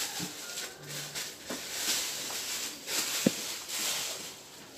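Plastic bubble wrap rustling and crinkling as it is pulled and peeled away by hand, in uneven swells with a couple of sharp crackles.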